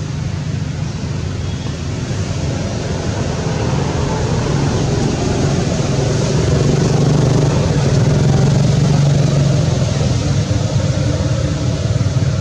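Motor vehicle noise close by: a steady low engine hum with road noise that grows louder through the first half and eases slightly near the end.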